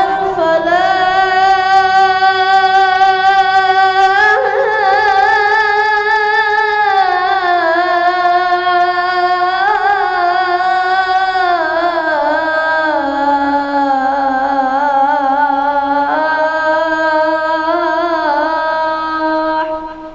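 A boy's voice chanting the adhan, the Islamic call to prayer, in maqam Kurd. He holds one long melismatic phrase on 'hayya 'ala' for almost twenty seconds, its pitch rising and falling in wavering ornaments, and stops just before the end.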